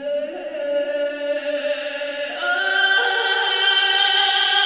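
Film background music: a choir chanting long held notes that step up in pitch several times and swell louder.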